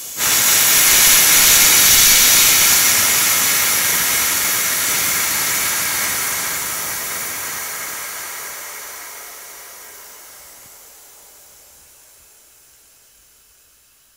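High-pressure air hissing out of the bleed screw on a Mantus scuba compressor's fill valve as the fill hose is vented. The hiss starts abruptly, then fades slowly over about twelve seconds as the hose empties of pressure; when it stops, the hose is depressurized and the fill valve is safe to remove.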